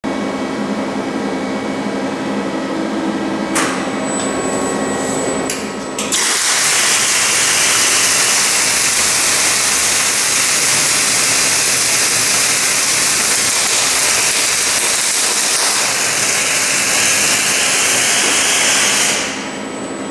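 Robotic MIG welding arc from a Fronius TPS 330 power source on an ABB IRB 1400 robot, hissing and crackling steadily for about thirteen seconds. It strikes about six seconds in, after a steady machine hum with a few clicks, and cuts off about a second before the end.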